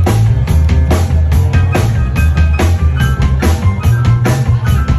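A live band playing loud music, with a sustained upright double bass line and a drum kit keeping a steady beat of about two strikes a second.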